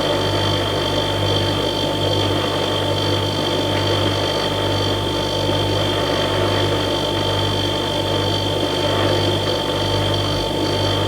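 Household refrigerator's compressor running: a steady electric hum with a low drone that wavers slowly and a thin high whine over it.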